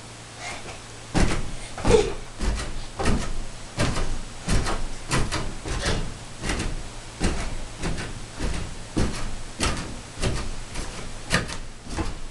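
Repeated thumps of a child's feet landing on an upholstered couch as he jumps on it, starting about a second in and going on at a steady beat of about one and a half a second.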